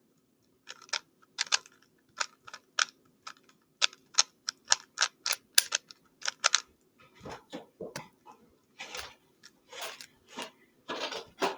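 3x3 Rubik's Cube being turned in the hands, its plastic layers clicking in quick, irregular runs, as when scrambling or solving. From about seven seconds in, fewer and duller knocks follow, from the cube being handled.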